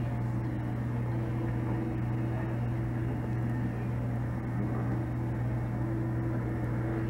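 A steady low hum over a background hiss, unchanging and without any distinct knocks or clicks.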